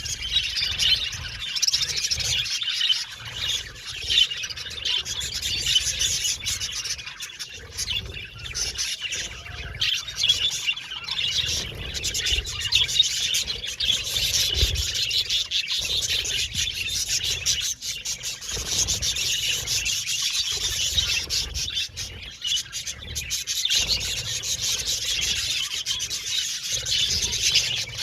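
A colony of budgerigars chattering and chirping nonstop, many birds at once.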